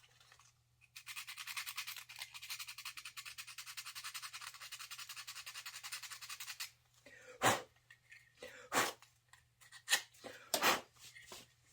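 Sandpaper rubbed rapidly back and forth over the filthy contacts of a Jeep CJ7 neutral safety switch for about six seconds, cleaning them so that they will make contact, then stopping. Several short, sharp clicks and knocks follow, and these are louder than the sanding.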